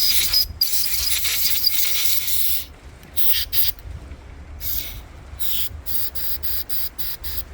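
Aerosol carburettor cleaner spraying onto a generator's carburettor. There is one long hiss of about two and a half seconds, then a string of short spurts that come quicker near the end.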